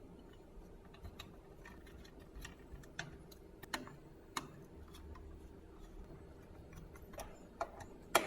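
Scattered small clicks and taps of hands working on parts of a mini PC, with the sharpest click near the end, over a faint steady hum.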